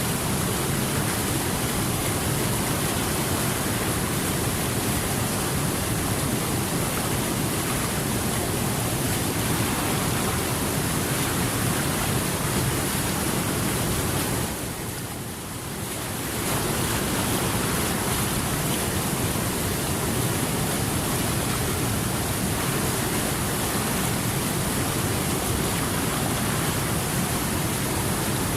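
Steady rushing water, a continuous even hiss with no distinct splashes or drops. It dips briefly quieter about halfway through, then returns to the same level.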